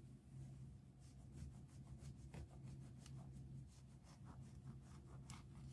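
A knife sawing through a ciabatta loaf: faint, repeated scratchy strokes of the blade rasping through the crust, over a steady low hum.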